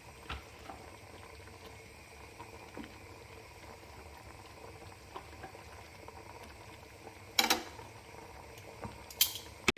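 Cream sauce bubbling at a low boil in a pot with chicken and fettuccine, a steady soft bubbling with small pops. Near the end come three sharp knocks, the loudest sounds here.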